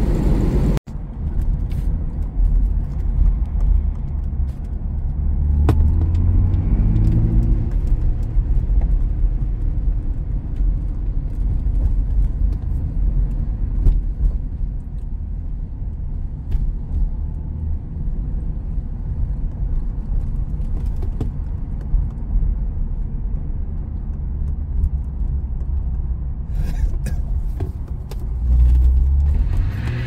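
Lexus SC300's 2JZ straight-six engine running while driving, heard from inside the cabin with road rumble. The engine note climbs as the car accelerates about six seconds in and again near the end.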